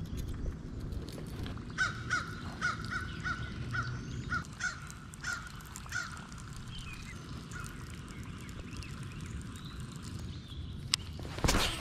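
A crow cawing in a quick series of repeated calls, about three a second, that thin out after a few seconds. Near the end comes a sharp click and then a short, loud burst of noise, the loudest moment.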